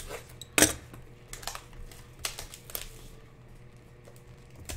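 Hands handling sealed trading-card packs on a table: light crinkling of the foil wrappers and a few sharp knocks, the loudest a little over half a second in.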